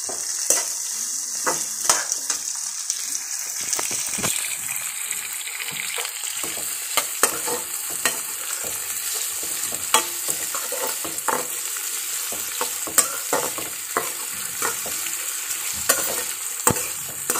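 Chopped onions sizzling in hot mustard oil in a steel kadhai: a steady frying hiss. A perforated steel spatula stirring them clinks and scrapes against the pan at irregular intervals.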